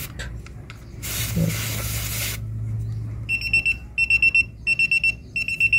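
A short hiss of air escaping from a tyre valve stem as a cap-type tire pressure monitoring sensor is unscrewed. About halfway through, the TPMS display unit starts its alert, a high, even beep repeating about one and a half times a second.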